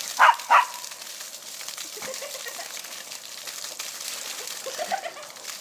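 Water gushing up from a broken lawn sprinkler in a geyser-like column, a steady hiss, with two short loud vocal sounds just after the start.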